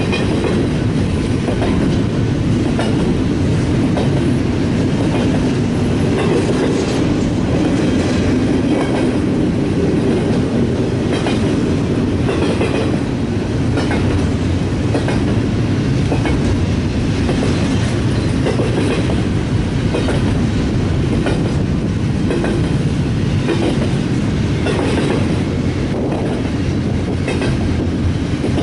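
BNSF freight train rolling past, its wheels clicking in a regular rhythm over the rail joints above a steady low rumble.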